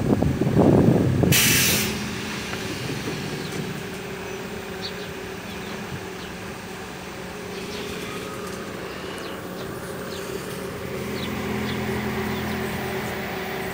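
Cable caterpillar haul-off machine running with a steady mechanical hum. It opens with a loud low rumble and a short, sharp hiss of compressed air about a second and a half in, from its pneumatic tension system. The hum grows a little stronger near the end.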